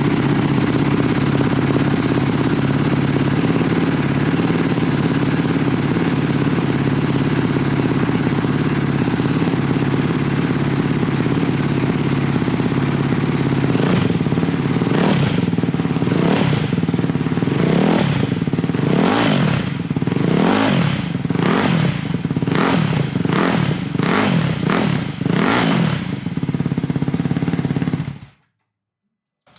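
Ducati Hypermotard 698 Mono's single-cylinder engine running through an Austin Racing slip-on exhaust with dB killers fitted. It idles steadily, then from about halfway the throttle is blipped about ten times in quick rising-and-falling revs. The sound cuts off suddenly near the end.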